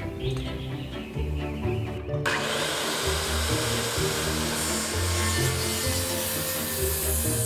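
Background music with held low notes, and from about two seconds in a saw cutting through wooden boards with a steady rasping noise.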